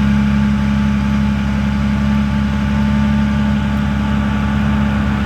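Mercedes Sprinter van's engine idling steadily just after a cold start in sub-freezing weather.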